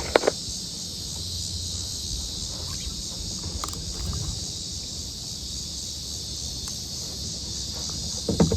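Steady high-pitched chorus of insects, with a low rumble underneath and a couple of small sharp clicks near the start.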